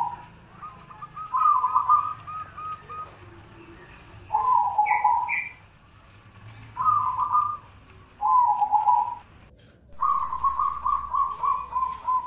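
Zebra doves (perkutut) cooing: a series of rolling, trilled coos, each about a second long, some opening with two short higher notes. The longest phrase comes near the end.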